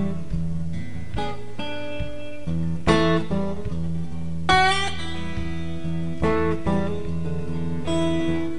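Acoustic guitar music: strummed and plucked chords changing every second or so, with a sliding note about halfway through and no singing.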